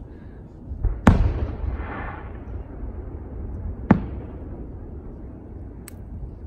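Aerial fireworks shells bursting: two sharp booms about three seconds apart, the first about a second in and the louder, each followed by a low rumble.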